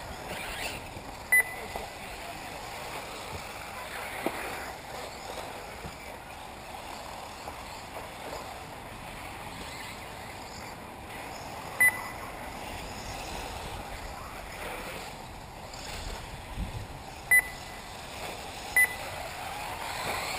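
1/8-scale electric RC off-road buggies racing, their motors whining up and down in pitch as they pass, over a steady rushing background. Four short, sharp high beeps stand out: one about a second and a half in, one around twelve seconds, and two close together near the end.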